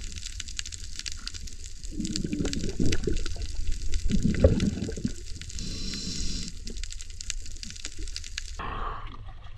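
Sea water sloshing and bubbling around a camera, with louder bursts of bubbling about two and four and a half seconds in; the sound changes abruptly near the end.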